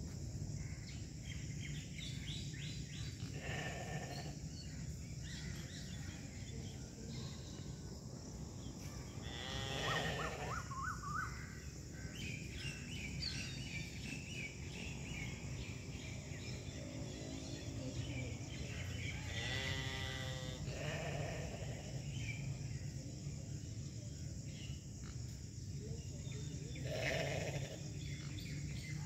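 Mouflon bleating about four times, several seconds apart, over a steady low background hum.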